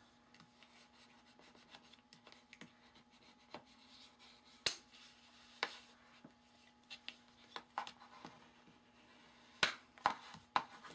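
Bone folder and hands rubbing along a folded cardstock card to crease it: soft paper rubbing with scattered light taps and a few sharp clicks, over a faint steady hum.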